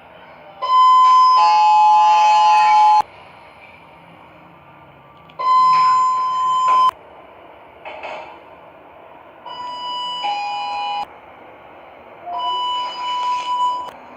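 Sigma elevator chimes: electronic bell tones sounding every few seconds. First comes a loud two-note falling chime, then a single held tone, then another, quieter two-note falling chime, and near the end a short low note followed by a higher one.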